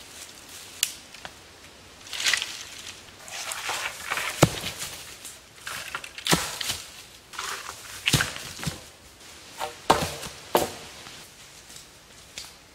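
Footsteps crunching through dry fallen leaves, with irregular sharp cracks of dry wood as dead branches and poles are snapped, dropped and knocked together while gathering deadfall.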